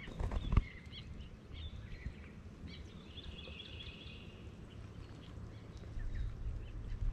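Outdoor ambience of birds calling now and then, including a fluttering trill held for over a second in the middle, over a low steady rumble. A few sharp knocks come just after the start.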